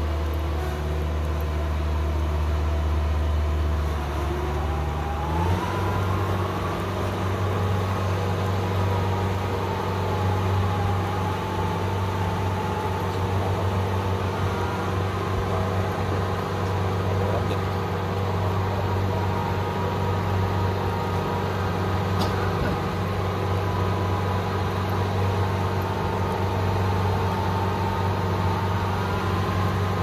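Kubota DC60 combine harvester's diesel engine running as it travels along a concrete lane. About five seconds in it revs up, and a higher whine rises with it and then wavers up and down as it drives on.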